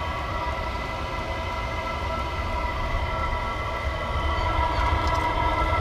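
Chinese diesel air heater running at a steady 3 Hz setting: a constant low rumble from the exhaust outlet with a steady whine from the combustion fan, slowly getting a little louder.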